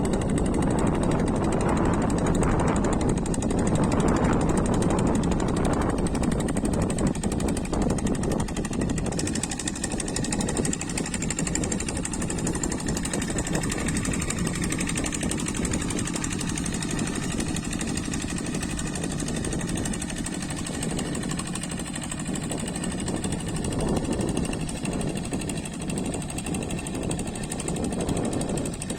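Single-cylinder Kubota diesel engine of a walking hand tractor running steadily, a little louder for the first several seconds, as it works a rice paddy during final levelling.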